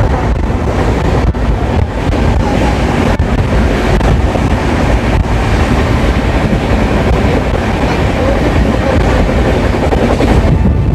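Gondwana Express passenger coaches running at speed: a loud, steady rumble and rattle of the wheels on the track, with a few sharp clicks from rail joints.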